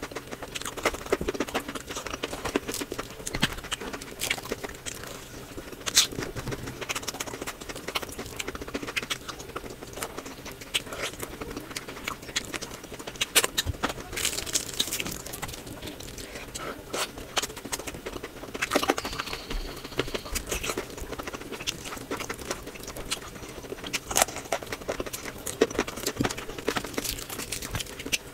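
Close-miked eating of mutton curry with rice: wet chewing, lip smacks and sticky clicks coming in quick, irregular runs over a faint steady hum.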